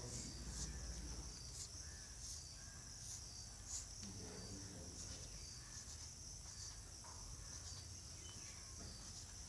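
Faint, steady high-pitched chirring of crickets, with a few soft strokes of chalk on a blackboard.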